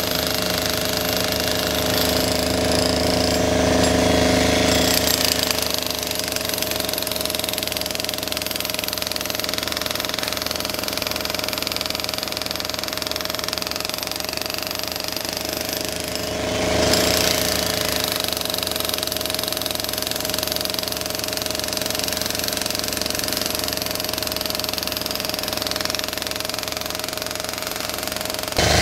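Corded electric mini breaker (demolition hammer) hammering without pause as it breaks up the asphalt road surface, over a steady motor whine. The sound swells briefly about halfway through.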